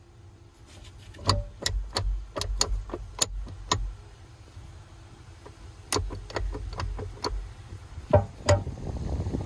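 A series of sharp metallic clicks and knocks as a connecting rod is rocked by hand on the crankshaft of an opened Sea-Doo 951 two-stroke engine. The clicks come in two runs of roughly two a second, with two louder knocks near the end.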